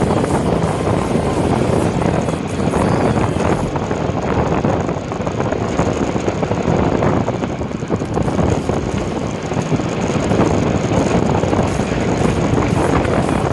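A road vehicle running along, heard as a loud, steady rushing noise with a faint high whine through the middle.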